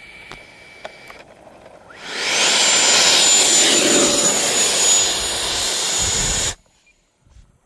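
Freewing F-16's 90 mm electric ducted fan spools up about two seconds in to a loud rushing whine with a steady high tone, as the RC jet moves close past on the runway. It cuts off abruptly after about four and a half seconds.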